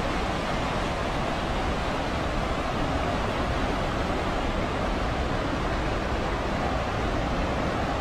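Steady rushing of stream water flowing over rocks, an even unbroken noise with no change in level.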